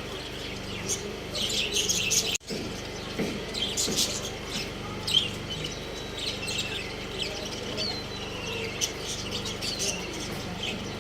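Small birds chirping and twittering in quick, repeated short calls, with a brief dropout about two and a half seconds in.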